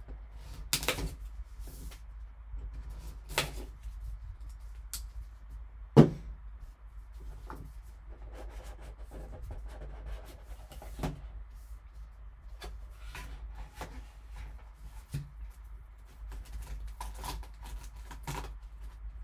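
A cardboard trading card box being cut open and handled: a folding knife slitting the sealing tape, then cardboard flaps and a plastic card case clicking and knocking at irregular intervals, with one sharp knock about six seconds in. A steady low hum runs underneath.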